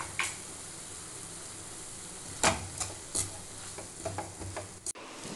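Vegetables sizzling in a nonstick kadai while a steel spatula stirs them, with several sharp scrapes and taps of the spatula against the pan, the loudest about two and a half seconds in.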